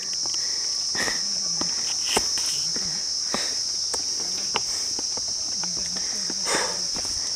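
Steady, shrill chorus of insects, one unbroken high-pitched drone, with scattered light clicks and taps over it.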